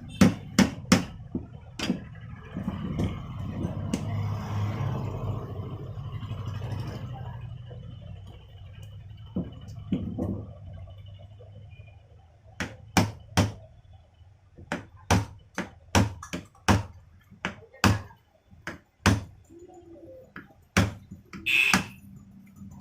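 Sharp metallic knocks at irregular intervals, a tool striking the chipping machine's parts during repair: a quick run of blows at the start and a longer scattered series in the second half. Between them comes a few seconds of low steady hum.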